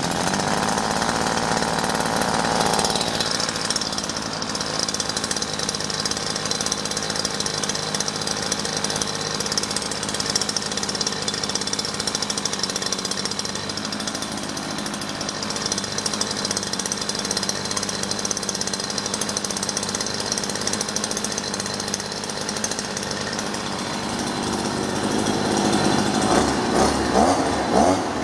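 Vito VIR43E 43 cc two-stroke brush cutter engine idling steadily just after starting. Near the end it is revved in a series of short bursts on the throttle.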